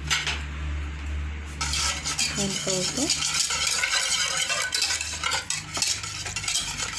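A spoon stirring and scraping briskly around a small saucepan, mixing honey, olive oil, ground cinnamon and lemon; the scraping starts about a second and a half in.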